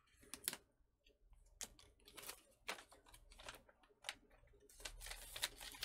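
Faint scattered clicks and short rustles of MRE packaging being handled: a plastic utensil and a paper instruction sheet, with a denser rustle near the end.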